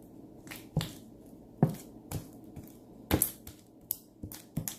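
Sticky homemade glue-and-detergent slime being kneaded and pulled by hand, giving a string of irregular wet smacks and squelches, the loudest a little past three seconds in.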